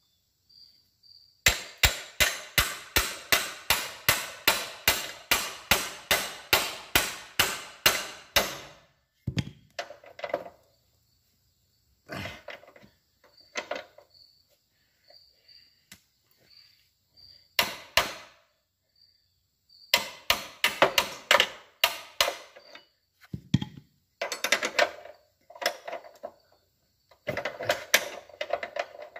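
Hammer blows on a wrench and bolt, metal on metal, to shock loose a rusted, seized bolt at the rear shock mount of an old Yamaha motorcycle. A quick run of about three blows a second starts about a second and a half in and lasts some seven seconds. After that come shorter, scattered bursts of knocks and clanks.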